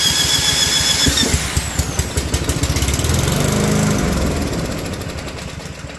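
Cordless drill whining at speed as it spins a push mower's small engine by the flywheel nut. About a second in, the engine fires on starting fluid and runs on its own with fast, even firing, then slows and fades out near the end as the fluid is used up.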